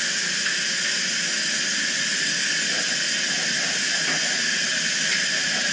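Compressed air hissing steadily into a hyperbaric chamber as it is pressurised during the descent of a dry dive.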